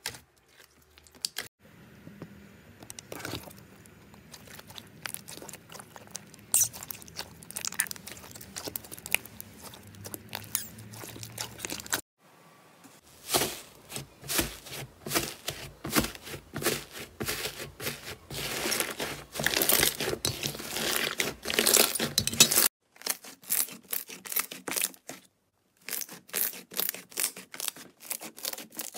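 Slime being squeezed, pressed and stretched by hand, giving rapid sticky clicks, crackling pops and tearing sounds. The crackling comes in several stretches with brief silent breaks between them.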